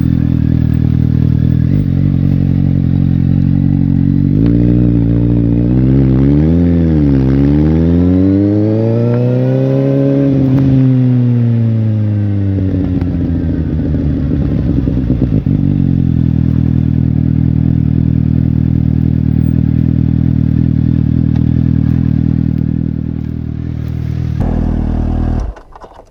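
Suzuki GSX-S750's inline-four engine idling, then a short blip of the throttle and a longer rev that climbs and falls back to idle. It is switched off near the end and cuts out suddenly.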